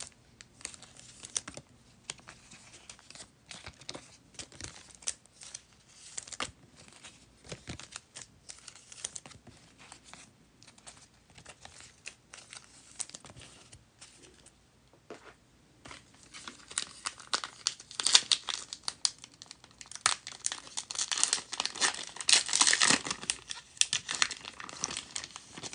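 A foil-wrapped football trading-card pack being crinkled and torn open by hand, loudest from about two-thirds of the way in, after light scattered rustling and taps.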